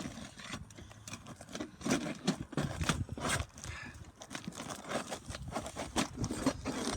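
Irregular scraping, knocks and clicks of a roofing pry bar working under sealed Atlas Pinnacle Pristine asphalt shingles, prying nails and tearing the sticky shingles loose.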